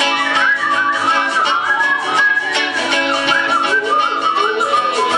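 Rock band playing strummed electric guitars and bass under a loud warbling whistle imitating chattering birds, its pitch sliding up and down in quick chirps.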